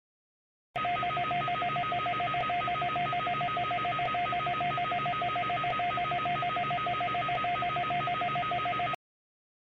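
Electronic alarm tone with two steady pitches, pulsing very rapidly like a telephone ringer's trill, over a hiss. It switches on abruptly about a second in and cuts off abruptly near the end.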